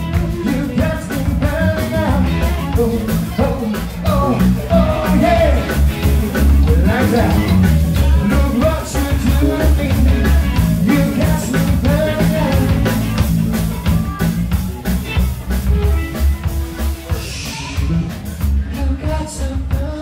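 A live rock band playing with a steady drum beat, strong bass, electric guitar and keyboard.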